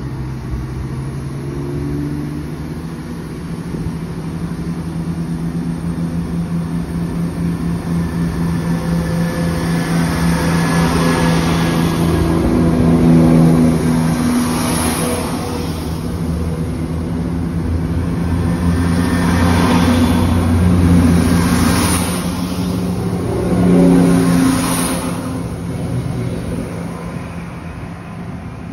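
East Midlands Railway Class 170 Turbostar diesel multiple unit pulling away from the platform, its underfloor diesel engines running up under power. The engine note holds steady while the sound swells three times as the cars pass close by, loudest about halfway through, then eases as the train draws away.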